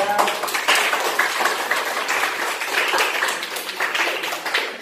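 A group of students clapping, a dense patter of many hands with voices mixed in.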